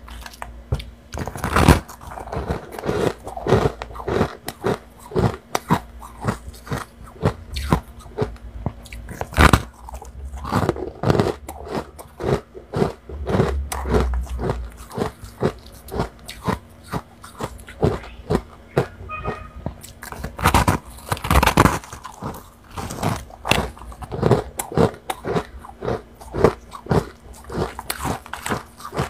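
Fluffy white freezer frost crunching as it is bitten and chewed and squeezed in gloved hands: a dense, irregular run of crisp crunches, several a second.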